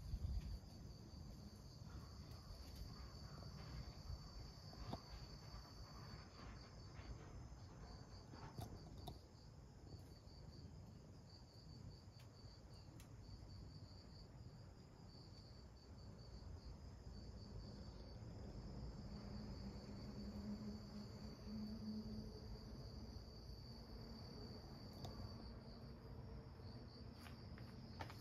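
Faint, steady chorus of insects chirping, a continuous high pulsing trill, with a few soft clicks.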